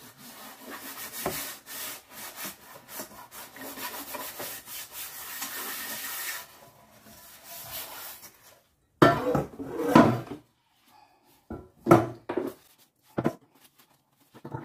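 Cloth rubbing and wiping over a kitchen worktop, a steady scraping hiss for about six seconds, followed by several loud knocks of objects being set down on the counter.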